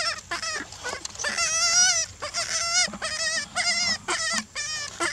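Young long-tailed macaque crying: a rapid series of high-pitched, wavering, bleat-like cries, about ten in all, the longest just over a second in.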